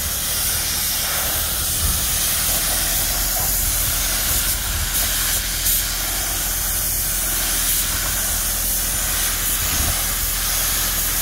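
Compressed-air paint spray gun hissing steadily as it sprays paint.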